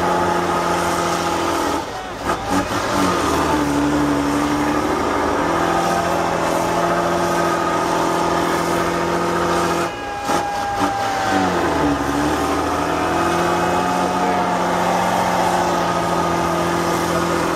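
Tatra 813 8x8 trial truck's diesel engine running hard under heavy load as it climbs a steep dirt bank. The revs sag twice, about two seconds in and again near the middle, then pick back up.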